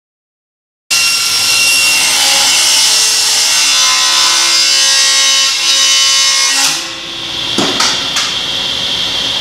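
SawStop table saw cutting through a board. The cut ends about seven seconds in and the blade then spins free with a steady high whine, with a few knocks soon after.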